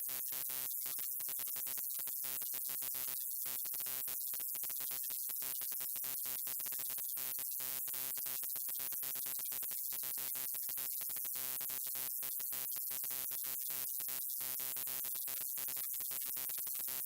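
Neon sign's electrical buzz: a steady hum with many overtones under a bright hiss, broken by frequent brief, irregular dropouts like flickering.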